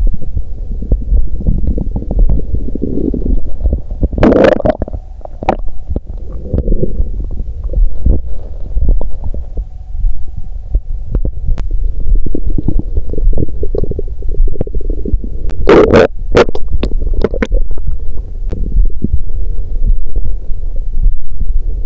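Stomach and intestines gurgling and rumbling continuously, picked up by a microphone held against the belly, with a few louder, sharper crackling gurgles about four seconds in and again around sixteen to seventeen seconds.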